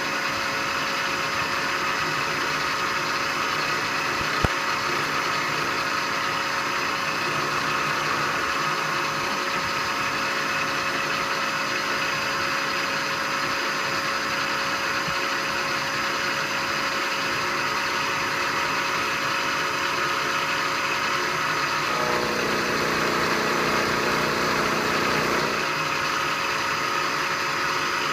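Milling machine running a 3/4-inch four-flute carbide end mill, facing the ends of steel tool-holder blanks at a 10-degree angle: a steady motor and spindle hum with cutting noise. A short tap about four seconds in, and the cut sounds heavier for a few seconds near the end.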